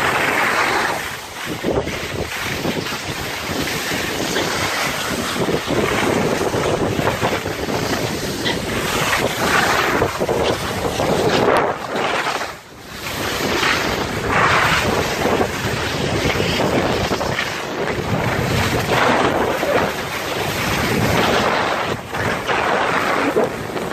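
Wind rushing over the microphone mixed with the hiss and scrape of skis sliding over snow on a downhill run, rising and falling in swells, with a brief drop about twelve seconds in.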